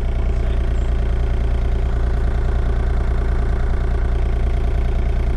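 Engine of the work machine (an excavator-type machine with a bucket) idling steadily, an even low hum with no change in speed.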